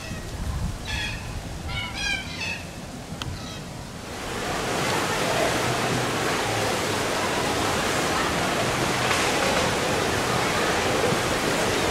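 Man-made waves in a wave pool surging and breaking, a steady, loud wash of churning water that starts suddenly about four seconds in. Before it, quieter outdoor air with a few short high chirps.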